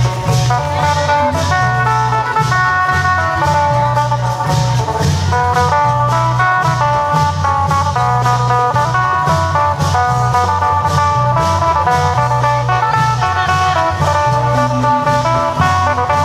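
Isan long-drum (klong yao) band playing loud, steady procession music: an amplified phin picks a quick plucked melody over a deep low line and a steady beat of drums and cymbals.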